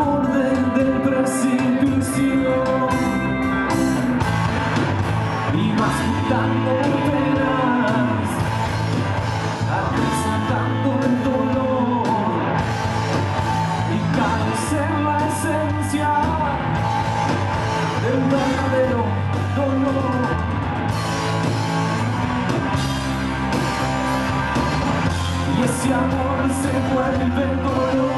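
Rock band playing live: electric guitars, bass and drums with frequent cymbal hits, and a lead singer's voice over them.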